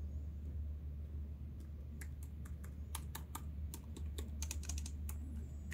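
Keys being pressed on an Asus ROG Zephyrus G14 laptop keyboard: a run of quick, irregular key clicks starting about two seconds in, over a steady low hum.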